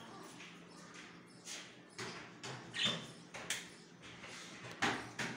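Irregular light taps and scratchy clicks, spaced a half second to a second apart, from small caged birds moving about on the wire and perches.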